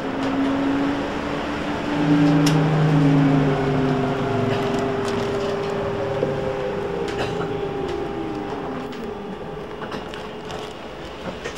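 Trolleybus heard from inside at the front in heavy rain: the electric traction equipment whines on several steady tones over road and rain noise. Past the middle, one whine falls in pitch as the bus slows, and there are a few scattered clicks.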